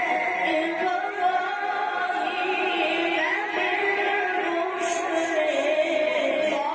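A male reciter's voice chanting the Quran in long, ornamented melodic phrases, holding notes and gliding up and down in pitch.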